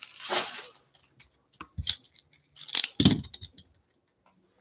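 Stack of trading cards handled by hand: a few short rustles and taps of card stock, the loudest about three seconds in.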